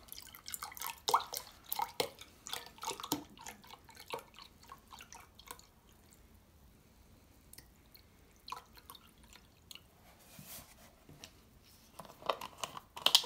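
Beef stock pouring from a carton into a glass measuring jug: quick uneven splashes and drips for the first few seconds, then only scattered drips. A few sharper clicks near the end as the carton is handled.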